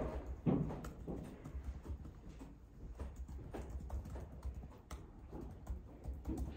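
Fingers typing on a laptop keyboard: an irregular run of soft key clicks, with a few duller low knocks, the loudest about half a second in.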